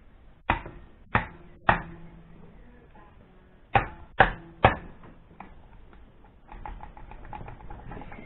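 Spanner knocking and clinking against a Zenith VN carburettor's metal body and nut: two sets of three sharp metallic knocks, each with a short ring, then faint quick clicking near the end.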